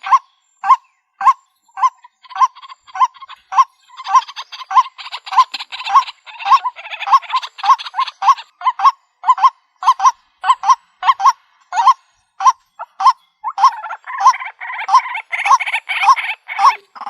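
White-breasted waterhen calling: a long series of short, harsh 'ruak' notes repeated at about two a second, with rougher chattering mixed in at times.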